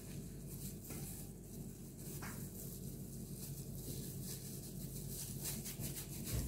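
Disposable plastic food-prep gloves rustling as hands scoop and shape mashed potato, over a steady low hum, with a soft thump on the table near the end.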